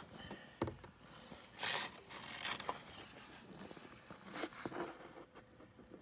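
Irregular scrapes, rustles and a few sharp clicks as a floor jack with a wooden pad on its saddle is set in place under the car's jack point.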